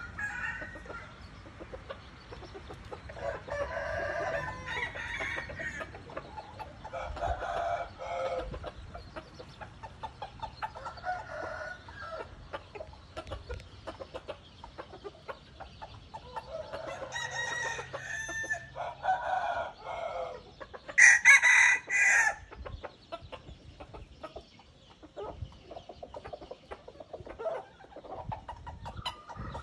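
Red junglefowl roosters crowing one after another, with clucking between the crows. The loudest crow comes about two-thirds of the way through.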